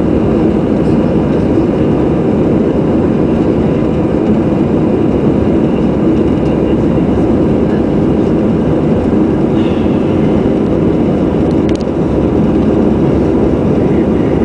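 Steady cabin noise inside an Airbus A319 climbing after takeoff: the engines at climb power and the rush of air over the fuselage make a loud, even drone, heard from a window seat by the wing. One brief click sounds near the end.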